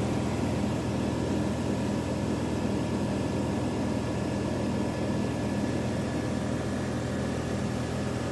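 Engine and propeller of a small high-wing light aircraft in cruise, heard from inside the cabin: a steady drone with a regular throb.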